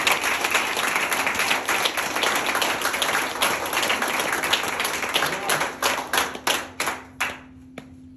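Audience applauding, dense clapping that thins out to a few last separate claps about seven seconds in and then stops.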